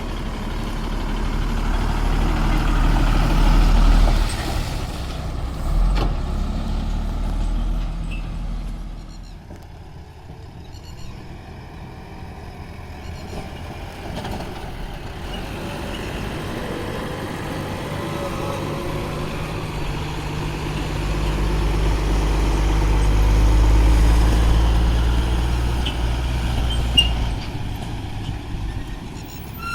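Heavy diesel engine of earthmoving machinery running at a loading site. It revs up under load twice, once in the first few seconds and again for several seconds late on, and drops back to a lower, quieter run in between.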